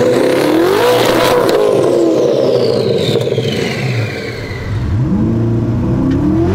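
Twin-turbo C8 Corvette V8 revving hard on the two-step at the drag-strip start line. It climbs, holds high and falls back, a high whistle sinks in pitch, and then it rises again near the end. The engine is running up on its own with the driver's foot on the brake, which she calls really weird and a car running super hot.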